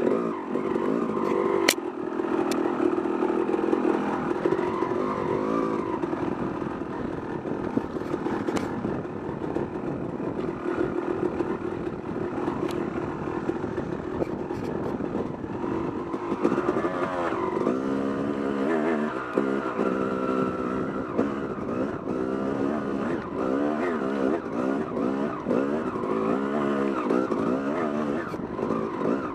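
Yamaha YZ250 two-stroke dirt bike engine being ridden hard on a trail, heard from the rider's helmet camera. The revs rise and fall with the throttle, rapidly and repeatedly in the second half. There is a sharp click about two seconds in.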